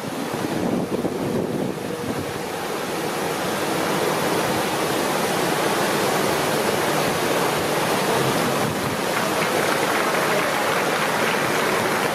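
River water rushing steadily over a low weir, a continuous white-water noise.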